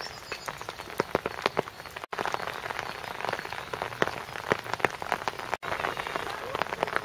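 Rain falling close by: many irregular sharp drop ticks over a steady hiss. The sound cuts out for an instant twice.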